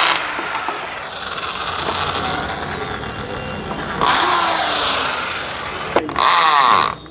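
Electric drill running in two long runs as it backs screws out of wall-mounted perches, each run starting sharply with a high motor whine that falls slowly in pitch. A second run starts about four seconds in, and a shorter burst follows near the end.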